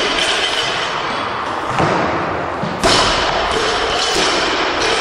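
Barbell with rubber bumper plates dropped onto a lifting platform. Two heavy thuds about a second apart, the second the loudest, then a lighter knock as it bounces and settles, echoing in the hall.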